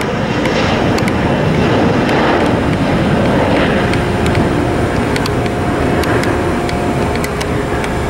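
Twin-engine regional jet's turbofans at takeoff power during the takeoff roll: a loud steady roar with a deep rumble. A faint steady whine comes in about halfway.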